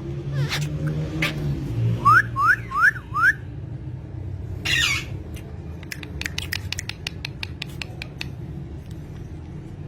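Parrots calling: a run of four quick rising whistles, then a harsh squawk, then a stream of short, sharp chirps.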